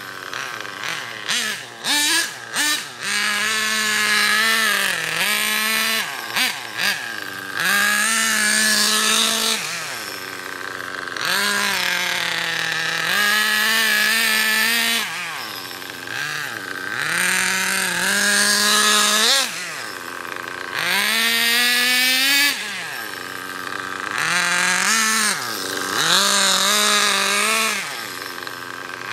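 Small two-stroke nitro glow engine of an OFNA Ultra LX Comp 1/8-scale RC buggy, revved up and down in repeated bursts as the car is driven, its pitch climbing and falling with each burst. Several short stuttering throttle blips come in the first few seconds and again a few seconds later.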